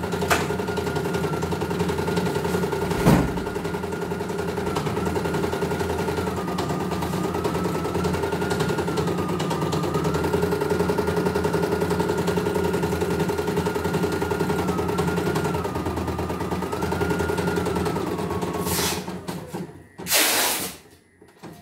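CNY E900 computerized embroidery machine stitching a test pattern: the needle mechanism runs fast and steady under a faint whine that steps up and down in pitch. There is a single knock about three seconds in. The stitching stops after about eighteen seconds, followed by a short loud burst of noise.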